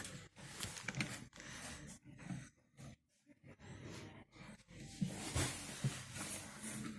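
Irregular small knocks, clicks and scrapes of hands and tools handling parts of the unit, with a brief quiet spell about three seconds in and a few sharper knocks near the end.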